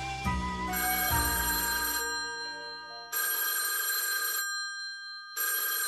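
Cartoon telephone ringing: three rings of a little over a second each, about a second apart, the first coming in over the end of a short musical phrase.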